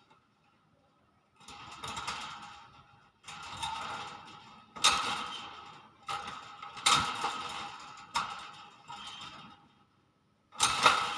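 Hill myna giving a series of harsh, noisy calls: about six bursts, each roughly a second long, with short quiet gaps between them.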